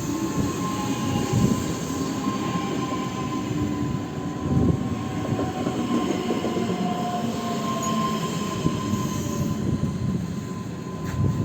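EG2Tv Ivolga electric train rolling over the rails as it slows to a stop, its wheels squealing with a thin, steady high tone over the rumble of the running gear.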